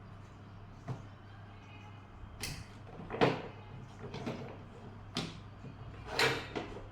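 Hard objects knocking and clacking as tools and plastic parts of an extension-cord socket are handled during repair, about seven sharp knocks with the loudest a little past three seconds in and again around six seconds. A steady low hum runs underneath.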